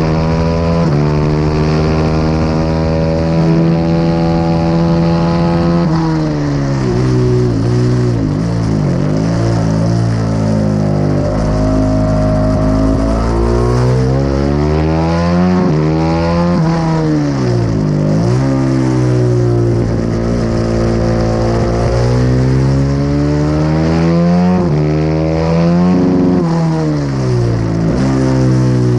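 Honda CRF450RR's single-cylinder four-stroke engine at full song on a track lap, heard from an onboard camera. The pitch holds high for about six seconds, then drops sharply and climbs again several times as the rider shifts down into corners and accelerates out of them.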